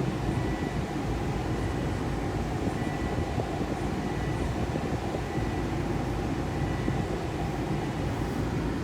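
Steady road and engine rumble inside the cabin of a Volvo XC90 with the 2.5-litre turbo engine, driving with no suspension clunk heard now that the loose sway bar end link has been replaced.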